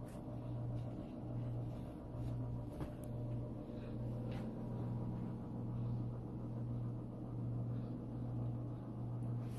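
A steady low hum that swells and eases about once a second, with a few faint light taps.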